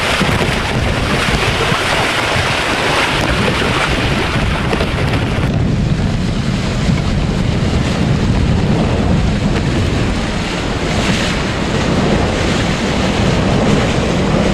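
Wind buffeting the microphone and water rushing past the hulls of a trimaran sailing fast on a reach. The hiss turns duller about five and a half seconds in.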